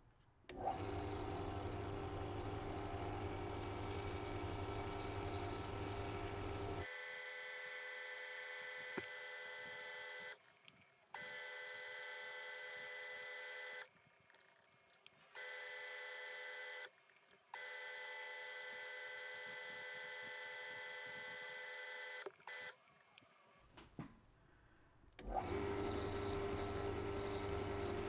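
Benchtop drill press running steadily, spinning a forged carbon shift knob for sanding: a steady motor hum with several held tones. It cuts out and starts again several times, with a longer quiet gap near the end before the hum returns.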